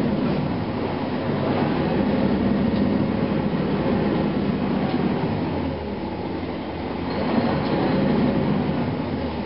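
Cummins ISM diesel engine of a 2004 Gillig Phantom transit bus running while the bus is under way, mixed with road noise, heard from inside the passenger cabin. The sound eases a little about six seconds in, then builds again.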